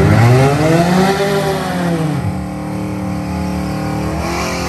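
Classic El Camino drag car's engine revving on the starting line before a quarter-mile run: one rev rises and falls over the first two seconds, then the engine runs steadily and rises a little again near the end.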